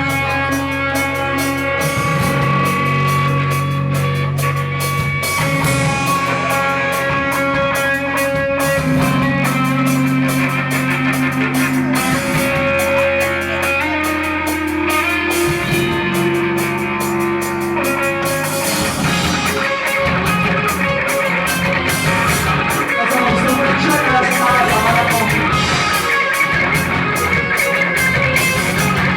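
Pop-punk band playing a song live: guitars over a drum kit with a steady beat.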